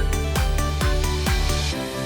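Electronic background music with a steady kick-drum beat, about two beats a second; the beat drops out near the end, leaving held notes.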